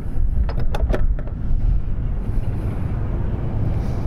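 Wind buffeting the microphone: a steady low rumble, with several sharp clicks in the first second or so.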